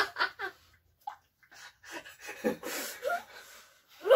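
People laughing and giggling in short, breathy bursts, with a loud burst of laughter right at the end.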